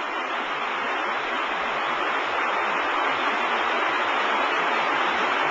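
Steady rushing noise of a tilt tray sortation conveyor system running, growing slightly louder about two seconds in.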